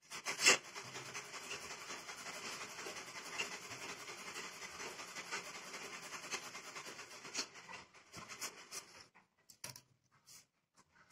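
Chalk marking lines on cloth along a plastic ruler: a steady rubbing noise with scattered clicks from the ruler. After about eight seconds it thins to a few separate taps.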